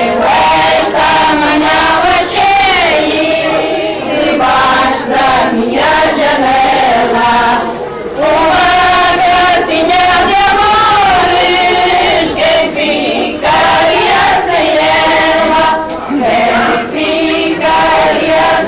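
A group of voices, mostly women's, singing a Portuguese folk song together in unison, in phrases a few seconds long with short breaks between them.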